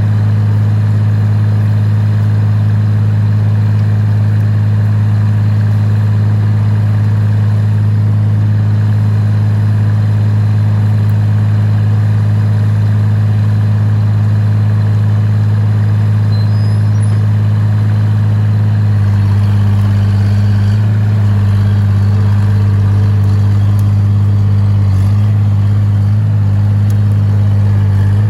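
Excavator's diesel engine running steadily with a strong low hum, growing rougher and more uneven about two-thirds of the way through.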